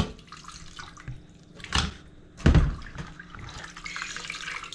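Water dripping and splashing, with two short knocks near the middle.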